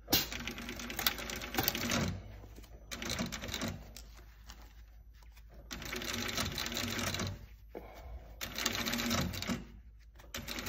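Industrial sewing machine stitching a new palm into a hockey glove: fast, even runs of stitches that stop and start again about five times, with short pauses between runs.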